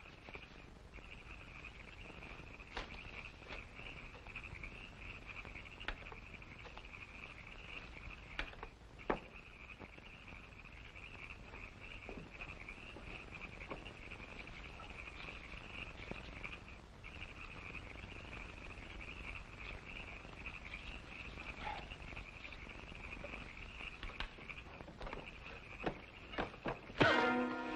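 Steady high-pitched chorus of night frogs and insects, with faint scattered clicks and snaps. A sudden loud hit comes right at the end.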